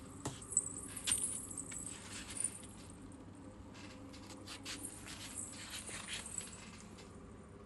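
Light, scattered clicks and rattles of small plastic toy fish being handled and knocking together.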